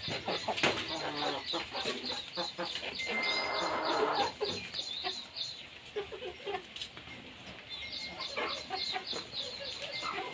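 A flock of chickens clucking, with many short, high-pitched calls repeated rapidly over one another.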